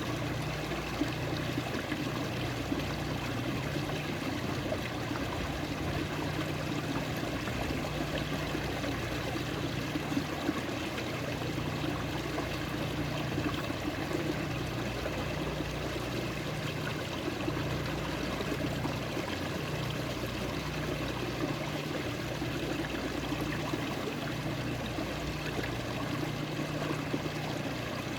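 Running water flowing steadily, an even, continuous rush and trickle that does not change.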